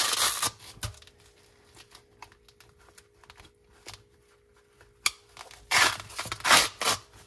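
Velcro hook-and-loop ripping apart on a nylon plate carrier: one rip right at the start and two more near the end, with a few faint small clicks in between.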